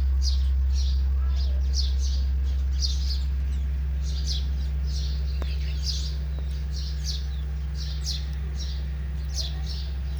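House sparrows chirping, short chirps repeating about twice a second, over a steady low hum.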